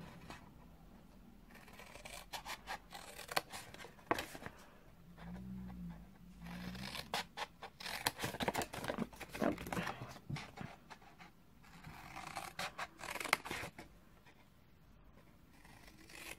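Scissors snipping into folded cardstock, a series of short cuts in runs with pauses between them.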